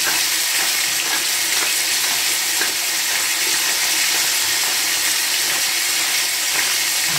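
Sliced lamb liver frying in a hot stainless-steel pan: a steady sizzle with small crackles and spatters, the freshly washed liver giving off water as it cooks.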